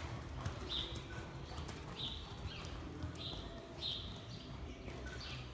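Horse cantering on soft arena footing, its hoofbeats thudding, while a small bird chirps short high notes about once a second.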